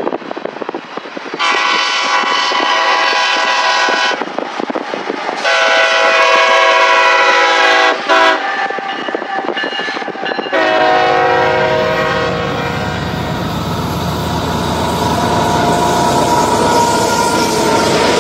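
Freight locomotive air horn sounding three blasts, two long and then a shorter one. From about ten seconds in, the lead unit, CSX heritage locomotive 1967 in Seaboard Coast Line paint, passes close by: its diesel engine rumbles under the steel wheels rolling on the rail, and this goes on after the horn stops.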